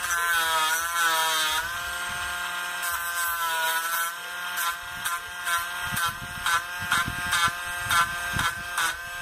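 Small handheld rotary tool with a sanding drum whining as it grinds the front of a hard-plastic fishing lure, rounding off the stub of its removed diving lip. The motor's pitch wavers, and short rasping scrapes come several times in the second half.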